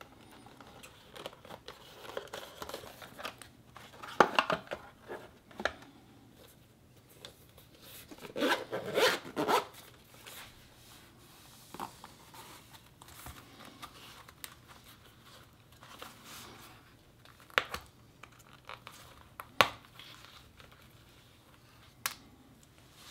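Zipper of a leather watch pouch being unzipped, with rustling handling of the leather and its suede lining. A few sharp separate clicks follow later.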